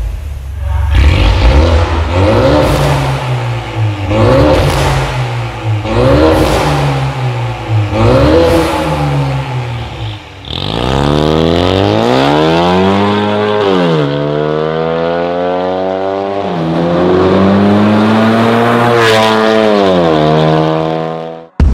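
Ford Mustang 2.3L EcoBoost turbocharged four-cylinder through a Fi Exhaust valvetronic cat-back, free-revved in quick blips about every two seconds. After about ten seconds it accelerates hard, engine pitch climbing and dropping back at each upshift.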